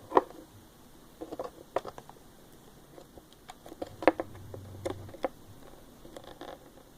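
Slime being squeezed and poked by hand, giving irregular wet clicks and small pops, the sharpest just after the start and about four seconds in.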